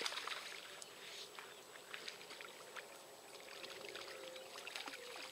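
Irregular light splashing and slapping of water as a hooked trout thrashes at the surface in the shallows by the bank.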